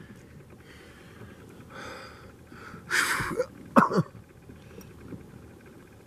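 A man's explosive burst of breath about three seconds in, like a cough or sneeze, followed at once by a short sharp yelp with falling pitch; a softer exhalation comes a second before.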